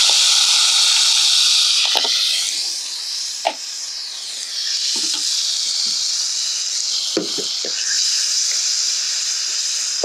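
Chicken sizzling loudly in hot oil in a pan, just added to the reheated pan. The sizzle is strongest for the first two or three seconds, then eases a little, with a few light knocks in between.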